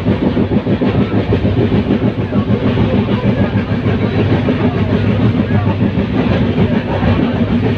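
Passenger train running on the rails: a loud, continuous rumble of wheels on track.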